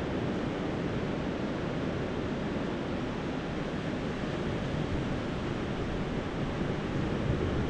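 Steady rushing wash of sea surf on the shore, mixed with wind on the microphone.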